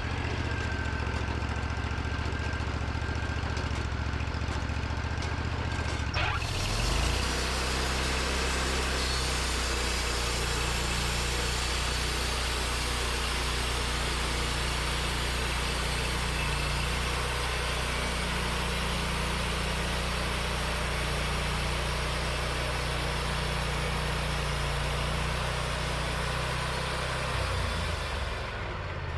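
Portable band sawmill: its engine idles, then speeds up with a click about six seconds in as the band blade is engaged, and the blade runs through a white pine log with a steady hiss for some twenty seconds. Near the end the engine drops back to idle.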